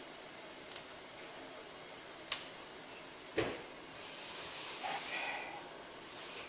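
Handling noises from laptop reassembly: a few sharp clicks and knocks of hard plastic parts, the sharpest a little over two seconds in, then about two seconds of rustling and scraping.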